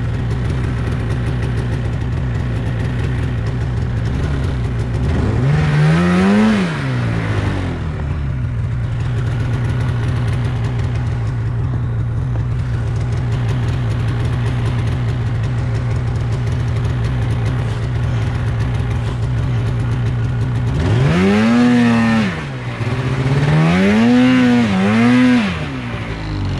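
Polaris snowmobile engine idling steadily, revved up and back down once about a fifth of the way in, then in three quick blips near the end, as the rider works the sled through deep snow.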